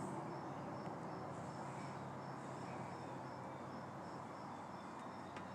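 Insect chirping outdoors in the evening: a regular series of short, high chirps, about three a second, over a steady low hum and background noise.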